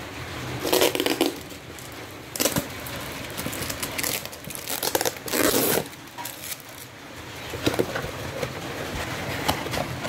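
Cardboard box being torn and opened by hand, in several short bursts of tearing and crumpling, with a few sharp taps and scrapes near the end.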